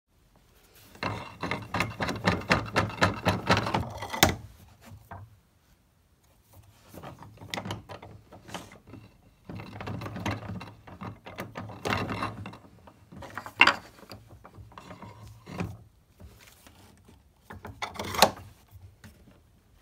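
Shop-made carpenter's vise being cranked: its coarse 3/4-inch threaded-rod screw is spun by the wooden handle through a steel pipe tee, giving a fast clattering tick in two long spells. A few sharp knocks follow as the wooden jaws are brought against a board.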